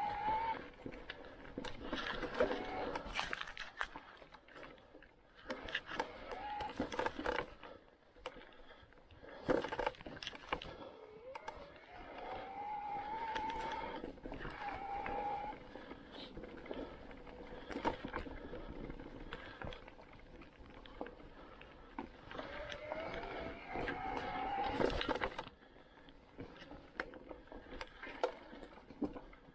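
Canyon Spectral:ON e-mountain bike riding a leaf-covered trail: the mid-drive motor whines, its pitch gliding up and holding as the assist pulls, over rolling tyre noise and rattling knocks from the bike over bumps.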